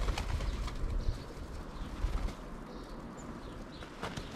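Birds calling, cooing like pigeons or doves, over a low rumble that fades after about two seconds.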